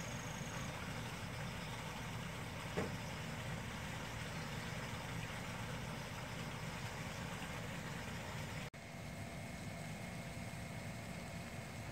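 Steady low background rumble of a mechanical kind, with a short tick about three seconds in. Near nine seconds it cuts out for an instant and resumes slightly quieter, with a faint steady whine.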